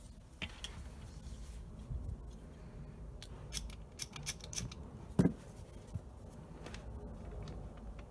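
Small handling clicks and scrapes at close range, bunched together a little past the middle, with one louder knock about five seconds in.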